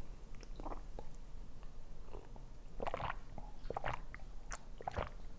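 Close-miked chewing and biting of food, with scattered short wet mouth clicks and smacks.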